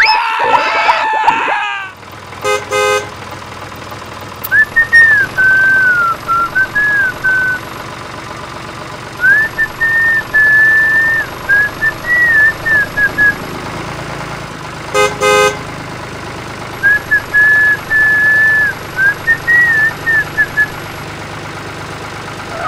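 A whistled tune in three phrases over a steady, low tractor engine hum, broken twice by short horn beeps, about three seconds in and again near the middle. A brief gruff voice opens it.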